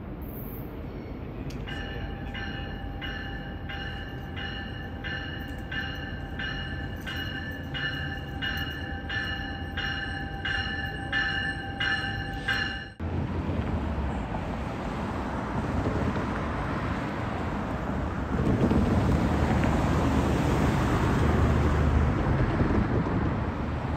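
Metrolink commuter train pulling into a station with a bell ringing steadily, about one and a half strikes a second. The ringing cuts off suddenly about halfway through and gives way to an even rushing noise that grows louder about three quarters of the way in.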